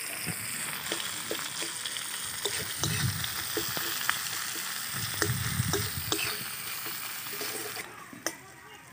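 Chopped onions sizzling in hot mustard oil in a metal kadai, with a metal spatula clicking and scraping against the pan as they are stirred. The sizzle drops away near the end.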